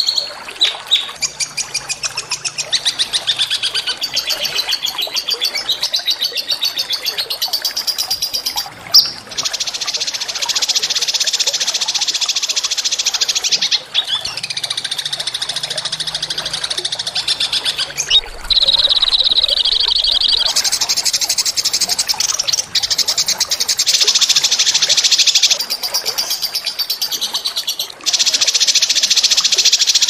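Small songbirds singing long, fast rolling trills of high notes in a pre-recorded training song, one trill pattern giving way to another every few seconds with brief breaks between them.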